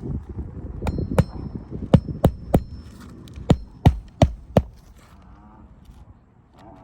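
Hammer driving roofing nails into asphalt shingles: about nine sharp blows in quick groups of two to four, a few with a brief metallic ring, stopping about five seconds in.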